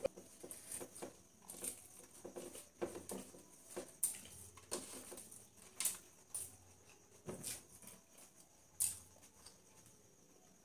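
Faint, scattered soft clicks and rustles, with a few sharper clicks about four, five, six, seven and a half and nine seconds in.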